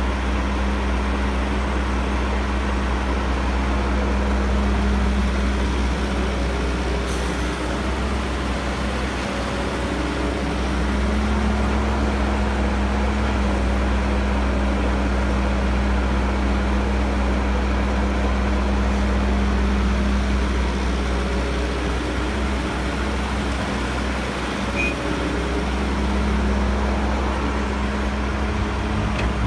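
Caterpillar E315B hydraulic excavator's diesel engine running steadily while it digs. Its note rises and falls slightly a few times as the load changes.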